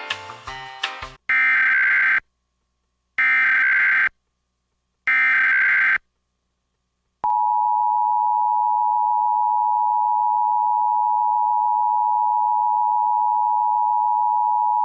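Emergency Alert System tones: three short bursts of SAME header data, each a harsh digital warble lasting about a second, a second apart. About seven seconds in, the steady two-tone EAS attention signal starts and holds.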